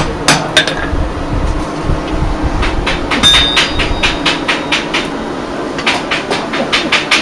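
A blacksmith's hammer strikes iron on the anvil twice at the start, then comes metal clanking at the coal forge with a short metallic ring, and near the end a fast, even clicking rattle, several clicks a second.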